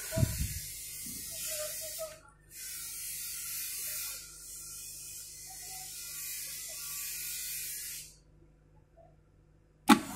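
A bulk milk cooler running: a steady hiss over a low, even hum, with a thump at the start. The hiss drops out briefly after about two seconds, then cuts off suddenly near the end, leaving near silence before a single sharp click.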